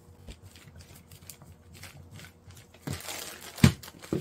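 Wooden rolling pin working over dough sealed in a plastic zip bag: soft crinkling of the plastic, a louder rustle about three seconds in, and two sharp knocks near the end, the first the loudest.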